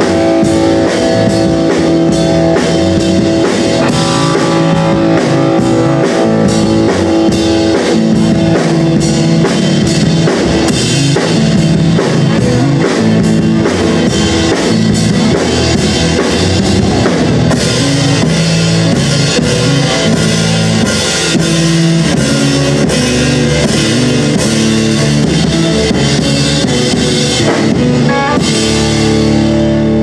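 Live rock band playing, with electric guitars over a drum kit at a steady beat. Near the end the drums drop out and the guitar chords ring on.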